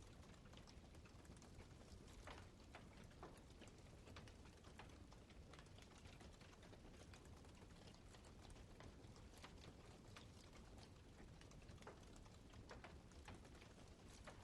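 Wood campfire crackling faintly: frequent irregular pops and snaps over a steady low rush.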